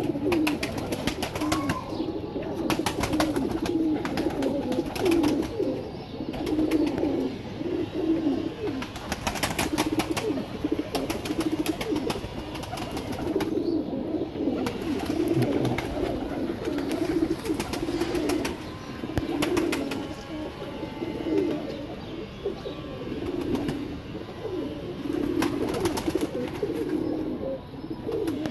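Domestic pigeons cooing over and over, one low coo following another.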